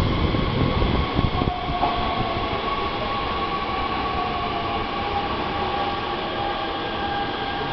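Hanshin 8000-series train running out of the station. A heavy rumble of wheels on rail comes first, then a steady, slowly drifting high whine with several tones rides over the running noise.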